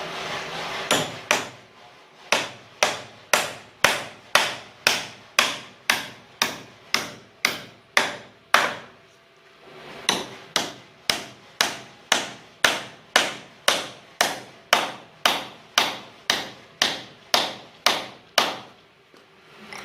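A carpenter's hammer striking repeatedly during woodwork, about two blows a second. The blows come in two long runs with a short pause about nine seconds in.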